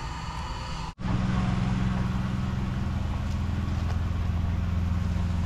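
An engine running steadily at idle, a low even hum that starts abruptly about a second in, after a hard cut from a steadier, hissier mechanical noise.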